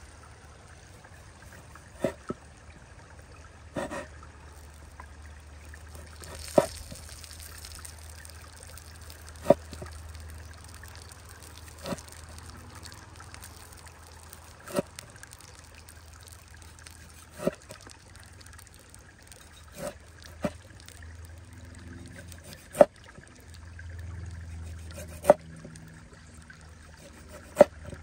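Large kitchen knife slicing through a seared beef steak and knocking on a wooden cutting board, one sharp knock about every two and a half seconds, over the steady trickle of a shallow stream.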